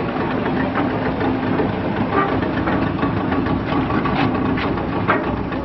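A boat's engine running steadily at a low hum, with a few short knocks now and then.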